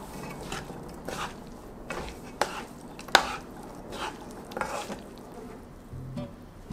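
Wooden spatulas stirring and tossing sweet potato stems in an enamelled pan: scattered scrapes and knocks of wood against the pan, the sharpest knock about three seconds in.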